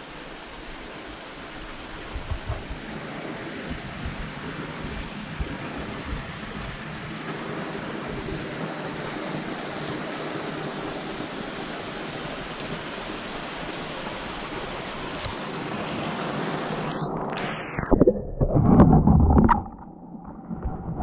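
Steady rush of a small creek's flowing water that slowly grows louder. About seventeen seconds in, the camera goes under the surface: the hiss drops away into muffled underwater sound with loud thumps and gurgles.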